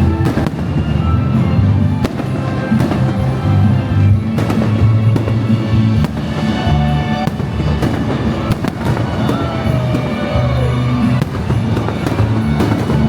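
Fireworks going off in scattered bangs over loud show music with a heavy bass.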